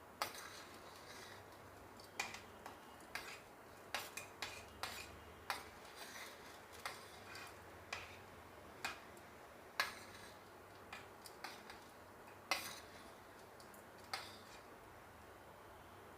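Kitchen utensils clinking and tapping against dishes, about twenty scattered short knocks with quiet between.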